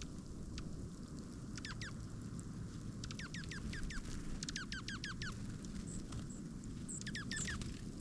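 A small songbird calling in quick runs of three to six short, steeply falling whistled notes, four runs in all, over a steady low outdoor rumble.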